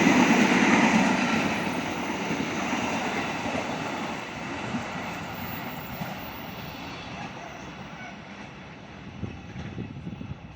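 Train rumbling along the rails at speed, loudest at the start and fading steadily away as it moves off.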